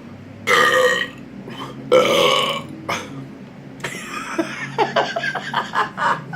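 A man burping loudly after chugging Coca-Cola: two loud burps, then a longer, broken run of rapid burps about four seconds in, brought up by the gas from the fizzy soda.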